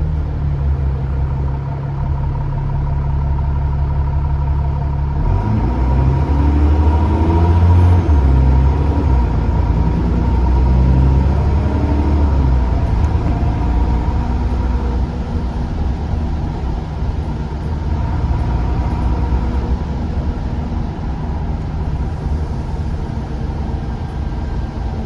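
Bus diesel engine heard from on board, running steadily at first. About five seconds in the bus pulls away and the engine note rises and steps through the gears before settling into steady running. A steady turbocharger whistle sits above the engine note.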